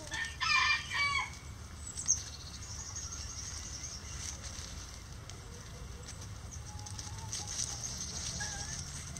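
A bantam rooster gives a short, loud crow near the start, followed by soft, scattered clucks from the flock and a single sharp tick about two seconds in.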